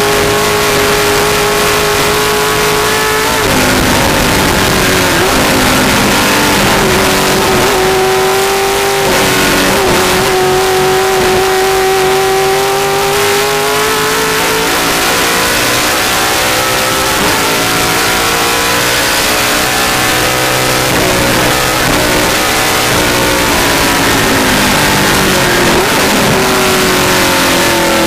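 Vintage Mustang race car's V8 at racing revs, heard from inside the cockpit with wind and road noise: the engine note drops early on as the driver lifts or shifts, climbs steadily under acceleration through the middle, and falls again near the end as he backs off.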